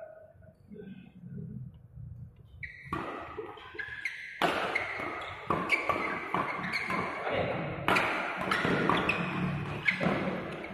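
Badminton rackets striking a shuttlecock in a fast doubles rally: sharp hits come one to two a second from about three seconds in, mixed with short squeaks of shoes on the court.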